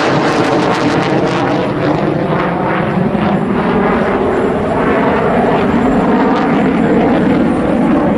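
F-16A Block 15 fighter jet flying past during a display, its single turbofan engine giving a loud, steady jet noise throughout.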